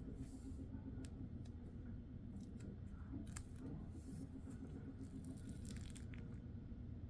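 Dried home-made peel-off film being pulled off skin: scattered small sticky ticks and crackles, with a few short tearing rasps.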